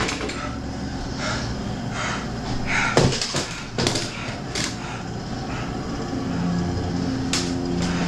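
A low steady hum with a few sharp knocks or bangs, the loudest about three seconds in and another near the end.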